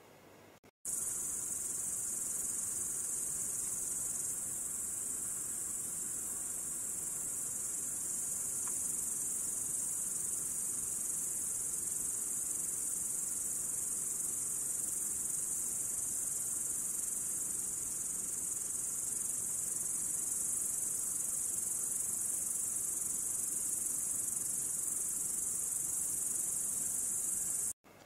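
Dense, steady chorus of night-singing crickets, a continuous high shrill. It starts suddenly about a second in and cuts off just as suddenly near the end.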